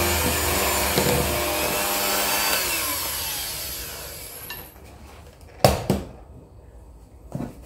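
Electric hand mixer running on low speed, its beaters churning thick cake batter; the motor slows and stops after about four and a half seconds. Then a sharp knock as the mixer is set down on the worktop, and a smaller knock near the end.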